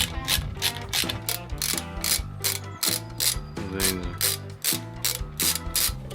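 Background music with a steady, quick percussive beat over a bass line and plucked melody notes.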